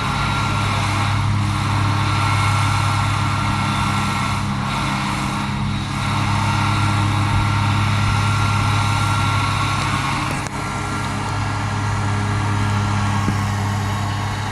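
Loud, steady mechanical drone with a strong low hum, unchanging throughout, like a large engine or motor idling.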